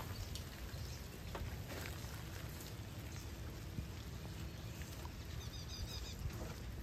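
Steady rain pattering, with scattered drip ticks over a low rumble. A brief high twittering comes in near the end.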